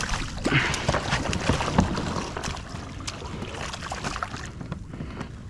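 Water splashing and small irregular knocks and clicks around a kayak as a hooked fish is fought to the side of the boat.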